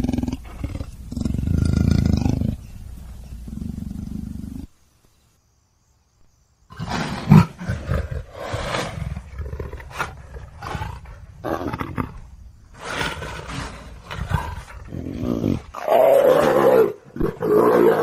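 Big cat growling and roaring in rough, breathy calls. They break off for about two seconds of silence after the first few seconds, then resume as a run of short calls, the loudest near the end.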